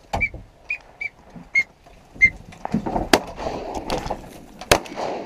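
A series of short, high whistled peeps about every half second, then two sharp shotgun blasts about a second and a half apart, near the end.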